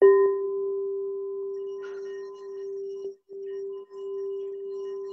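Quartz crystal singing bowl struck once and left ringing with a steady, pure tone. Heard over a video call, the tone cuts out briefly twice about three to four seconds in.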